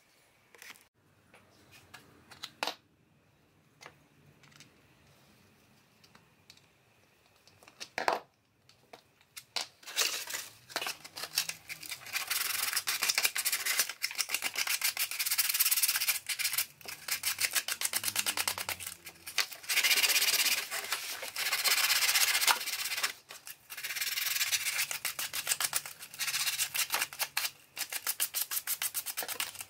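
Hand sanding a small workpiece with a folded sheet of sandpaper: rapid back-and-forth scratchy strokes that start about a third of the way in and go on in runs with short pauses. Before the sanding, only a few faint clicks and one sharper knock.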